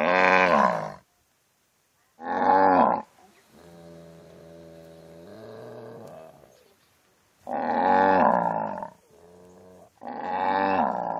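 Cow mooing repeatedly: several loud calls of about a second each, with a longer, quieter moo of about three seconds in the middle.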